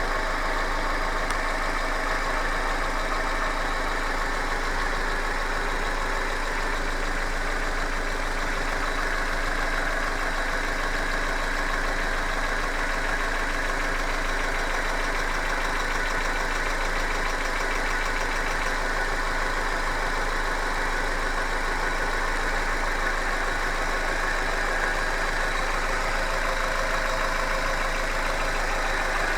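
Hyundai Accent engine idling steadily with a fast, even knocking running through it: the engine knock the owner is recording.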